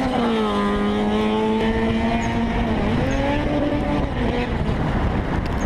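A car engine with road noise. Its note drops in the first second, holds, then dips and climbs again about three seconds in before fading out.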